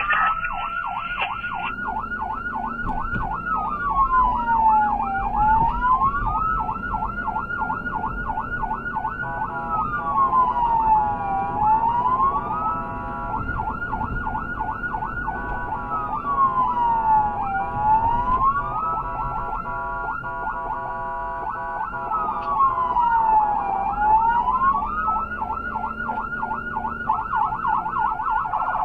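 Electronic emergency siren on a responding vehicle, sounded continuously while driving. It cycles between a rapid yelp of several pitch sweeps a second and a single slow fall and rise in pitch, about every six seconds. Road and engine noise run low underneath.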